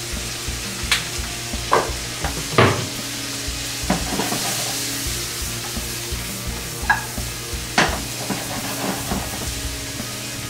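Fresh asparagus sizzling in a frying pan on the stove, stirred and tossed, with several sharp clinks of metal against the pan.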